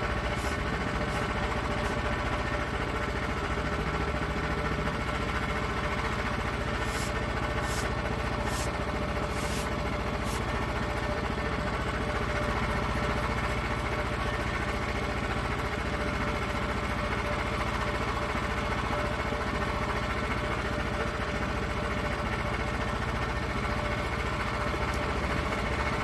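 A small engine running steadily at an even pitch, with a few faint clicks in the first ten seconds.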